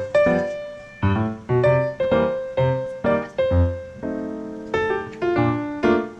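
Background music: a piano-like keyboard playing a light melody of separate plucked-sounding notes, each one fading after it is struck.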